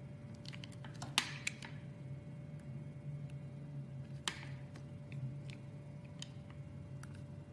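A razor blade slicing thin pieces off a bar of soap: crisp clicks and crackles, with two louder snaps about a second in and about four seconds in, over a steady low hum.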